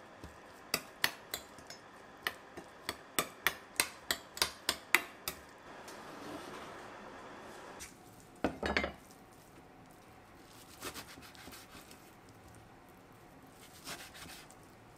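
A metal spoon clinks against a small glass bowl while stirring grated onion, about three sharp clinks a second for the first five seconds. Then a short louder rustle as blanched spinach is handled in a stainless steel bowl, and near the end soft knife taps cutting spinach on a wooden cutting board.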